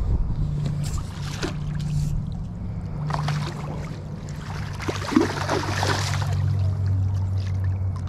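Water splashing as a landing net is lowered into a pond and a large carp swims out of it. The splashing is strongest a little past the middle, over a steady low hum.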